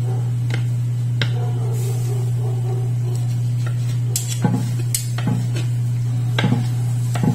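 Long kitchen knife slicing through grilled sirloin steak and knocking on a plastic cutting board, with metal tongs clinking, a series of sharp knocks most of them between about four and seven seconds in. A steady low hum runs underneath.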